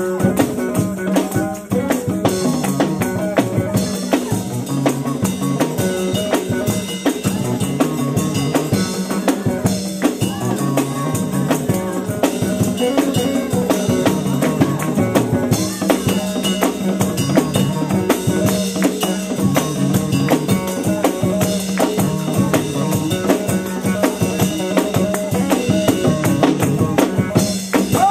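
Live gospel praise-band music driven by a drum kit, with the drums and other percussion keeping a steady, busy beat under the other instruments.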